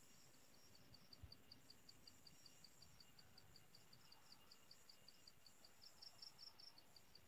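Near silence, with the faint, rapid, regular high chirping of an insect at about five pulses a second over a faint steady high trill.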